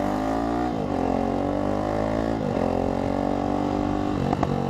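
Sport motorcycle's engine accelerating through the gears. Its pitch climbs, drops sharply at an upshift about a second in and again near two and a half seconds, then climbs again.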